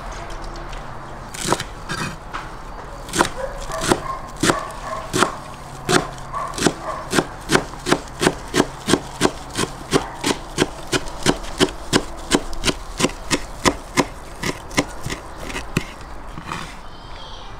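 Large kitchen knife chopping fresh herbs on a wooden cutting board: a long run of sharp knocks that picks up speed to about three a second, then slows and stops near the end.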